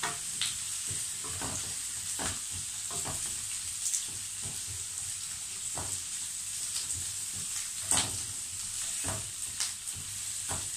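Sliced zucchini, carrots and onion sizzling in olive oil in a stone-coated frying pan, with a wooden spatula scraping and knocking against the pan at irregular moments as they are stirred; the sharpest knock comes about eight seconds in.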